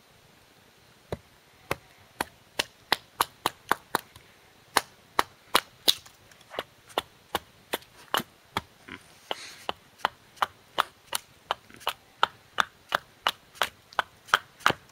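Wetterlings axe chopping along the edge of a split spruce billet held on a stump: a long run of short, sharp wooden strikes, about two to three a second with a few brief pauses, starting about a second in. The axe is hewing one face of the billet flat for spoon carving.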